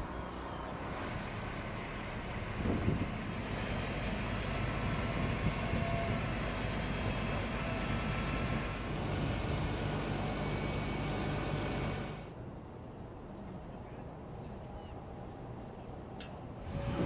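Boom truck engine running steadily to drive the aerial lift as the bucket is raised. The sound drops noticeably quieter about twelve seconds in.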